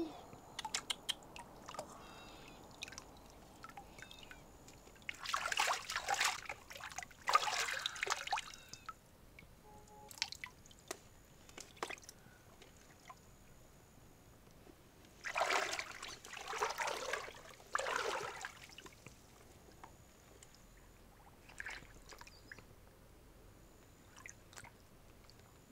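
Water splashing and dripping in two short bouts, with small clicks and drips between them.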